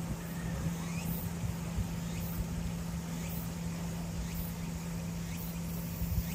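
Steady low mechanical hum with an uneven low rumble under it, and faint short high chirps about once a second.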